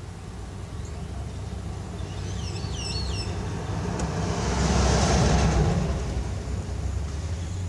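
A vehicle driving past: a low rumble with tyre noise that builds steadily, is loudest about five seconds in, then fades away. A few short bird chirps sound before it peaks.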